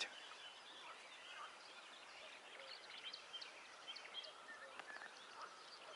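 Faint birdsong at dawn, with nightingales among the singers: scattered short chirps and whistles over a quiet background hiss.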